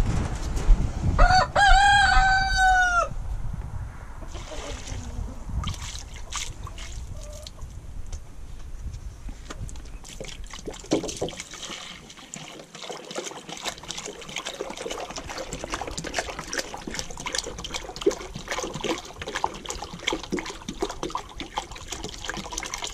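A rooster crows once, about a second in, in one long call. Chickens cluck now and then, and in the second half water glugs and splashes as it is poured from a plastic milk jug into a rubber waterer pan.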